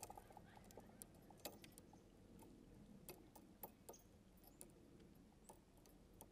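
Near silence with faint, irregular light ticks and clicks from fishing rod and reel handling.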